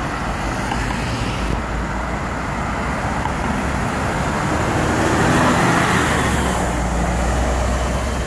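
A single-deck city bus and road traffic passing close by: steady engine and tyre noise, swelling as the bus drives off about five seconds in.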